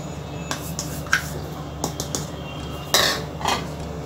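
Kitchen utensils and pans clinking and clattering: a handful of short sharp clinks, the loudest about three seconds in, over a steady low hum.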